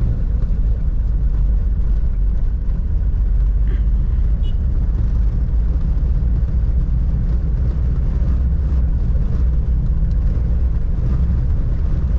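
Steady in-cab drone of a 1997 Toyota Hilux LN167 on the move: its 3.0-litre four-cylinder 5L diesel running, mixed with a low rumble of road noise from the tyres.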